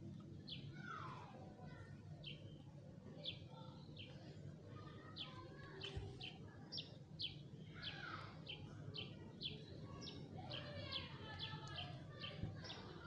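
Faint bird chirping: many short high chirps, growing more frequent toward the end, with a couple of lower falling calls, over a steady low hum.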